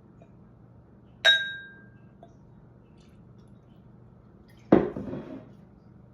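A glass clinks once with a brief ringing tone about a second in, then a duller, louder knock with a short rattling tail near the end, as drinking glassware is handled.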